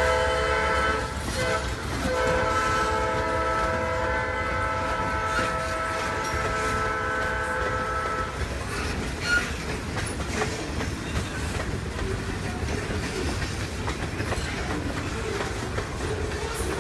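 Freight train's diesel locomotive horn sounding a long blast that breaks off about a second in, then resumes for about six seconds more, over the rumble of boxcars rolling past. After the horn stops, only the rolling boxcars are heard, wheels clacking over the rail joints.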